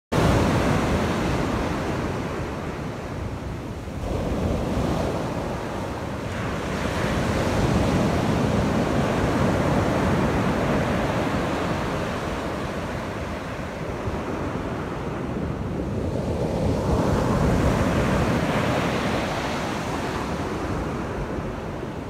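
Pacific Ocean surf breaking and washing up a sand beach: a continuous rushing roar that swells and ebbs with each wave, with surges about four seconds in, from about seven to ten seconds, and again around seventeen seconds.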